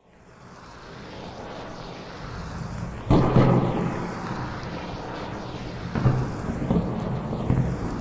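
Heavy rain and thunder fading in from silence. About three seconds in, a sharp thunderclap cracks, and more claps with rolling rumbles follow around six and seven seconds in.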